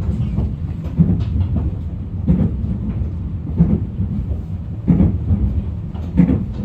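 Train running along the track: a steady low rumble with the wheels clicking over rail joints in an even beat, about once every 1.3 seconds.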